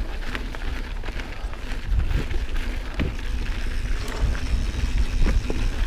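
Mountain bike rolling along a dirt trail: tyres crackling over gravel with scattered small ticks and rattles, and a steady low wind rumble on the microphone.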